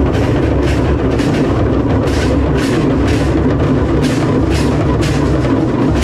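A troupe of drummers playing large hand-held drums together in a loud, dense festival procession rhythm, with bright sharp strikes about twice a second over a continuous din.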